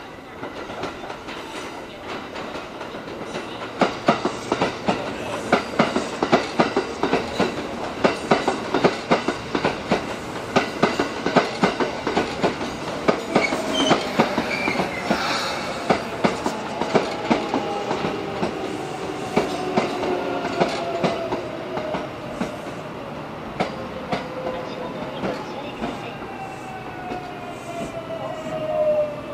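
Kintetsu 9020-series and 1020-series electric train arriving and braking to a stop: a run of rhythmic wheel clicks over the rail joints, then a motor whine that falls steadily in pitch as the train slows, ending as it halts.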